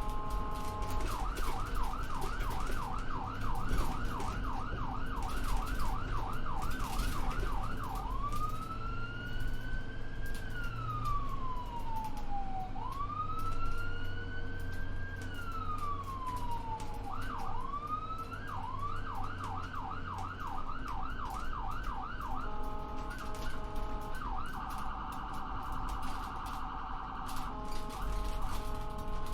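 Ambulance's electronic siren while the vehicle drives, switching modes: a fast yelp, then a slow wail rising and falling twice, the yelp again, a two-tone hi-lo, and a rapid warble near the end. A low engine and road rumble sits underneath.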